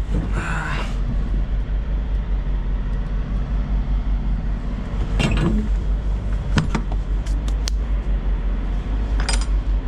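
Semi truck's diesel engine idling steadily, a constant low rumble. A few sharp clicks and knocks sound about halfway through, a quick cluster follows shortly after, and one more comes near the end.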